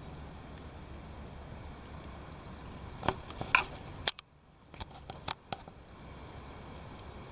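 Camera handling: a few sharp clicks and knocks about three seconds in over a steady low rumble, then a sudden drop to near silence for a second or so where the recording stops and restarts, followed by more clicks and the steady rumble again.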